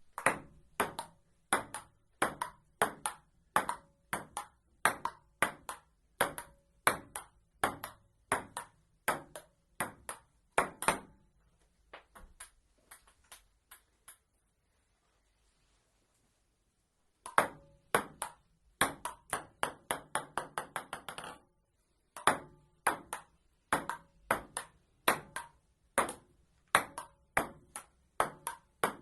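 Table tennis rally: a celluloid ping-pong ball's sharp clicks as paddles strike it and it bounces on the table, about two a second. Play stops for a few seconds midway. When it resumes, the ball bounces faster and faster until it settles, then the rally starts again.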